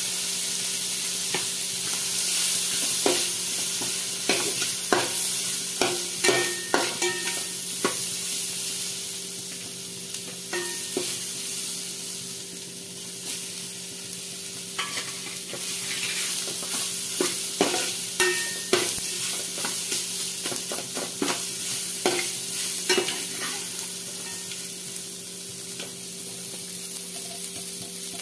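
Masala ingredients (coriander seeds, grated coconut, shallots, tomato and dried red chillies) sizzling in a metal pan, with a steady hiss. A metal spatula stirs and scrapes against the pan, making irregular clicks and scrapes. A steady low hum runs underneath.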